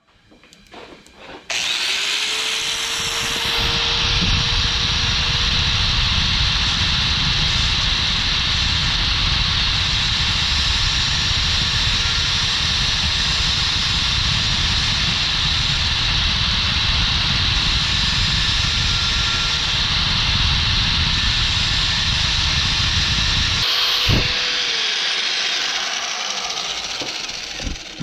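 A power tool motor running without a break for about 22 seconds. Its whine rises as it spins up, holds one steady pitch under a loud harsh hiss, then falls away as it winds down near the end.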